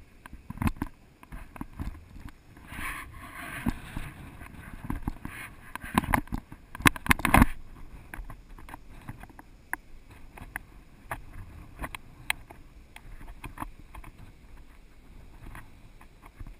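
Handling noise from a camera on a hand-held pole: irregular knocks, clicks and scrapes, dense and loud for the first seven or so seconds, then sparser and quieter, over a low rumble of wind on the microphone.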